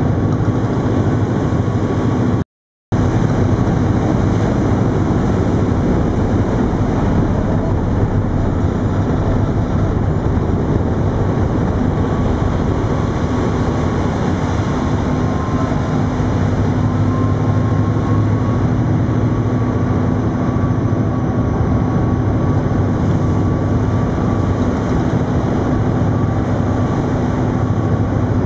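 A tug's diesel engines running steadily under way, a loud drone with a steady hum, over the rush of water churned up along the hull. The sound cuts out completely for a split second about two and a half seconds in.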